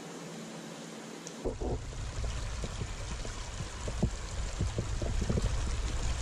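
Shallow, rocky brook running over stones. About a second and a half in, the water comes closer and louder, joined by a low handling rumble from the carried camera and several knocks and splashes of boots stepping on wet stones in the stream.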